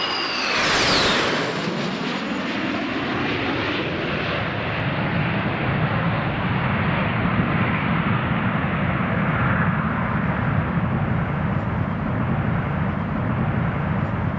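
Embraer 175 jet airliner's turbofan engines passing close at speed: two high whines drop sharply in pitch in the first second as it goes by, followed by a steady, loud engine roar.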